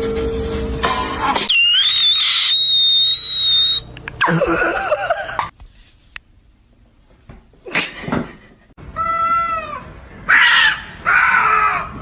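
Several separate cat meows and yowls one after another, with a long high-pitched cry about two seconds in and two or three shorter calls near the end.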